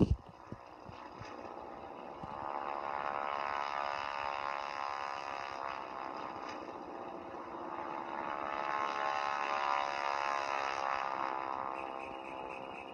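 Cartoon toy-plane engine sound effect, a buzzing propeller drone that swells twice as the plane passes and fades between. It is played through a tablet's small speaker.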